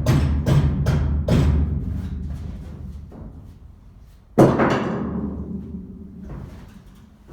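Percussive music: a quick run of drum hits that stops about a second and a half in and dies away, then one heavy drum hit about four seconds in that rings on and fades.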